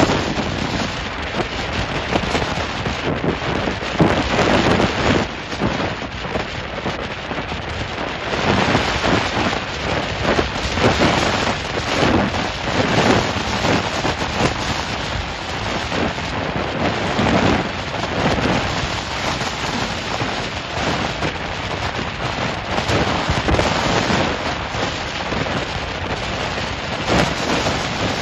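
Storm surf breaking and surging against a rock breakwater in strong wind: a continuous rushing noise that swells and eases every few seconds.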